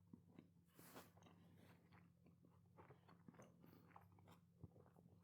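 Faint chewing of a mouthful of plant-based burger in a bread roll: a few soft, scattered mouth clicks, very quiet, over a low steady hum.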